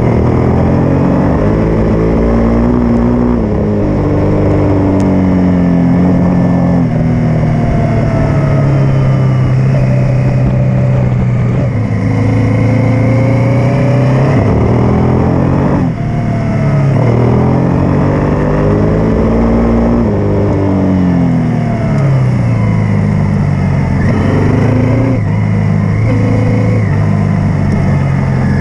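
Honda Africa Twin twin-cylinder motorcycle engine under way, heard close up with wind rushing on the microphone. Its pitch climbs and drops over and over as the rider opens and closes the throttle and changes gear, with a brief dip in level about halfway through.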